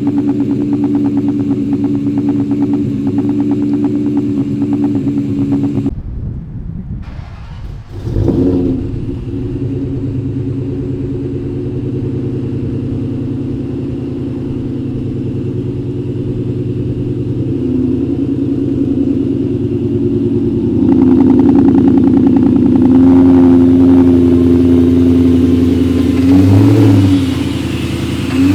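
2003 Ford SVT Cobra's supercharged 4.6-litre V8 running through Borla Stinger exhaust tips, mostly idling steadily. It gets louder from about two-thirds of the way in, with a brief swell near the end.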